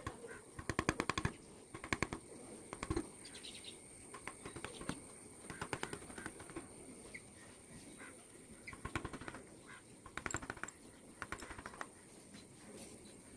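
Hand carving tools working teak wood: short runs of rapid light taps, about ten a second, each run lasting under a second and recurring every second or two.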